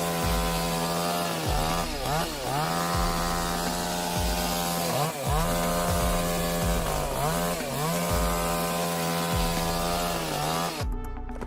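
Chainsaw running at high revs and cutting wood, its pitch sagging and recovering again and again as the chain bites. The saw sound cuts off abruptly near the end.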